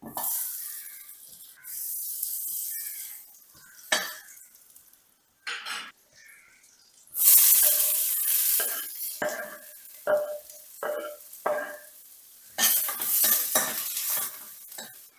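Food sizzling in hot oil in a pan, in three loud spells of hiss, with a metal spoon stirring and clinking against the pan several times in between.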